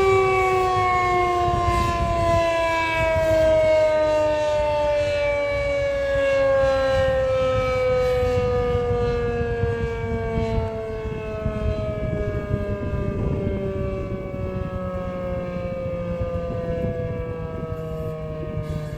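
Federal Signal 2001-SRNB two-tone rotating outdoor warning siren winding down: its chord slides slowly and steadily lower in pitch as the rotor coasts, with a low rumbling noise underneath.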